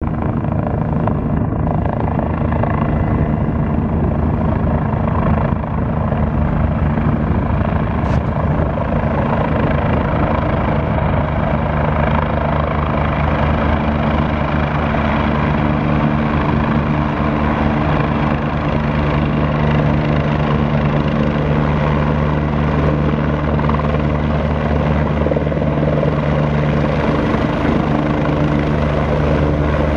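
Two police helicopters flying in low and hovering close, their rotors and turbine engines loud and steady, with a constant low hum under the rotor noise.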